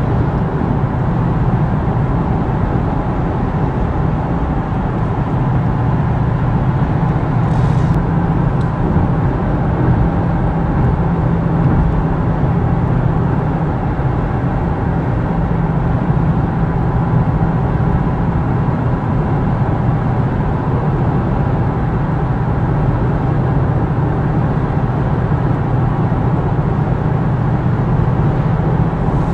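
Steady road and engine noise inside a Ford Mustang's cabin cruising at highway speed, an even low rumble with no changes. A brief click about eight seconds in.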